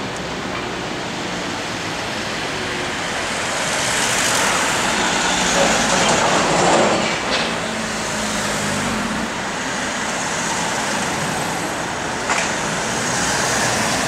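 Steady rumble of a moving vehicle that swells up in the middle and eases off again. Two short sharp clicks sound, one about halfway through and one near the end.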